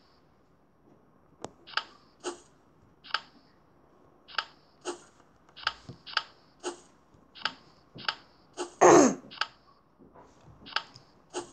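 Card-flip sound effects from a tablet memory-matching game: a string of short, sharp clicks, roughly one every half second to second. About nine seconds in there is one louder sound that slides down in pitch.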